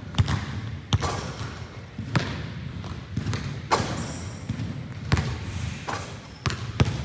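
A basketball bouncing on the gym floor, hard slaps at irregular intervals of about a second, each echoing in the large hall. A brief high squeak about four seconds in.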